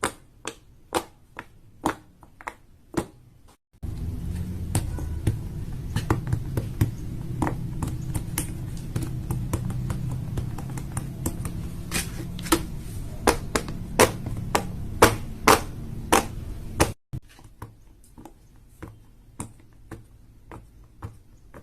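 Fidget toys being clicked and tapped by hand: a run of sharp, separate clicks, about two a second at first and then irregular, over three short clips. The middle clip has a steady low background noise under the clicks.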